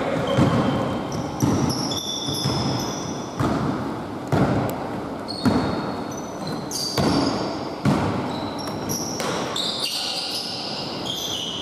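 Basketball bouncing on a hardwood court, thumping about once a second, with short high squeaks of sneakers on the wooden floor, echoing in a large gym hall.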